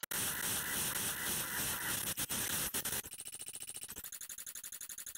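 Max/MSP sfplay~ object playing the anton.aif sample backwards and then sped up many times over, its playback speed changed with a number box: a dense, hissy garble for about three seconds, then a fast, even stutter that shifts in pitch about a second later.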